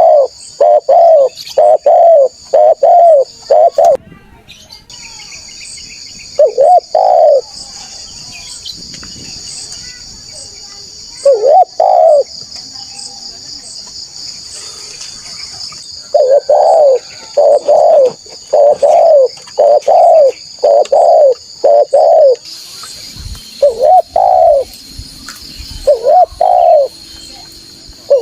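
Spotted dove (tekukur) cooing: short, mellow coos repeated in bouts, a run of about six at first, pairs after pauses, then a long series. A steady high insect drone runs underneath.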